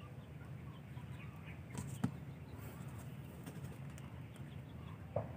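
Two sharp knocks, one about two seconds in and a shorter one near the end, from a hand handling a plastic tub and its bark furnishings, over a low steady hum with faint high chirps in the background.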